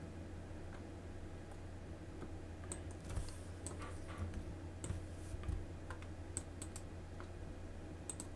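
Faint, scattered clicks of a computer mouse and keyboard, in small clusters a few seconds in and again toward the end, over a steady low hum.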